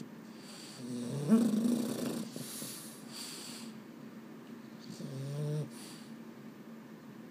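Boston terrier snoring and breathing noisily through its short nose as it nods off. There are two short pitched snores, a louder one about a second in and a lower one around five seconds in, with hissing breaths between them.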